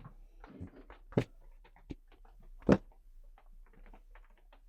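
Light clicks and knocks of wooden pieces being handled and set down on a workbench, with two louder knocks about a second in and again about two and a half seconds in.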